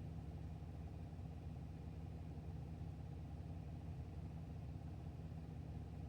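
2017 GMC Acadia All Terrain running steadily at idle, with the ticking noise the owner is recording.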